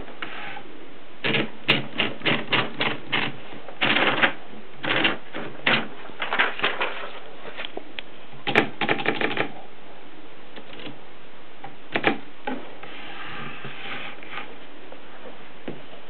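Mercedes Prima manual typewriter being typed on: the typebars strike in irregular runs of sharp clicks, busiest in the first half. A couple more strikes follow later, then a softer mechanical rattle near the end.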